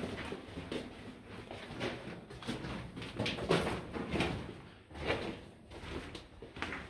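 Footsteps crunching and scuffing on the gravelly dirt floor of a mine tunnel, in an uneven walking rhythm.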